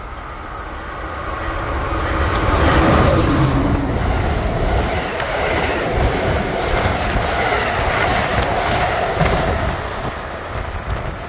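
Amtrak train led by a Siemens ACS-64 electric locomotive passing at speed: rumble and wheel clatter build over the first few seconds, stay loud, then ease off near the end.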